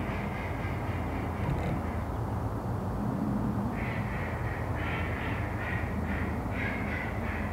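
A bird calling: calls in the first two seconds, then a run of short calls about two a second from about four seconds in, over a steady low hum.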